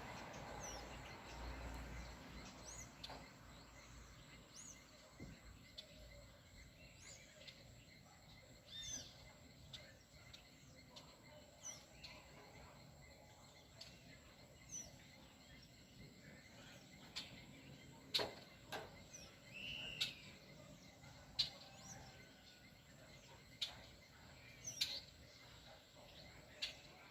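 Faint bird chirps: short, curved high notes repeated every second or two. Scattered sharp clicks run through them and are loudest in the second half.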